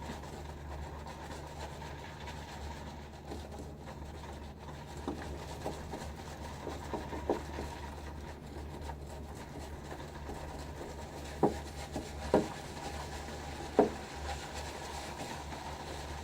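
Silvertip badger shaving brush swirled around a soup bowl, working soap and freshly added water into lather: a soft, steady rubbing. Three sharp clicks come in the last few seconds.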